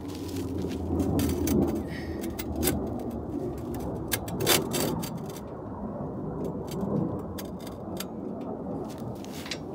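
Irregular metallic clinks and light knocks of hand tools and parts being handled, with one sharper knock midway.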